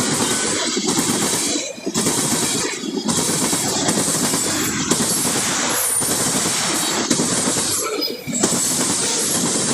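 Manifest freight train rolling past: a loud, dense rushing and rattling noise of the cars, with a few brief dips in loudness.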